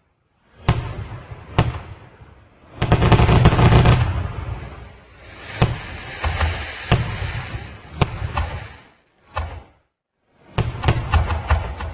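Repeated sharp bangs and cracks over a low rumbling, in several stretches that start and stop abruptly with short silences between them; the longest and loudest stretch comes a few seconds in.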